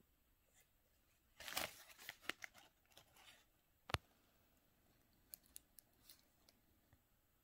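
Soft scraping and rustling of a cardboard cosmetics box and tissue paper as an eyeshadow compact in a velvet pouch is taken out. There is one sharp knock about four seconds in, and a few light clicks after it.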